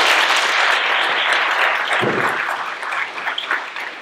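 Audience applauding at the end of a speech, a dense clapping that slowly dies down into scattered separate claps near the end.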